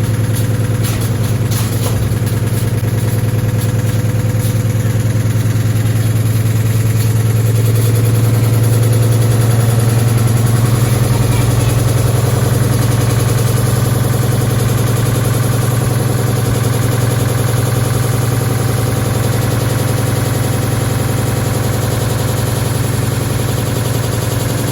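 Indesit washing machine spinning with a stone inside the drum, running unbalanced: a loud steady hum with fast rattling over it and a few sharper knocks in the first couple of seconds. It swells to its loudest about ten seconds in, then eases slightly.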